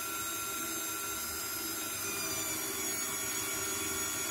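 KitchenAid Artisan stand mixer running steadily with a whine of several high tones, driving its pasta roller attachment as a sheet of pasta dough passes through the rollers.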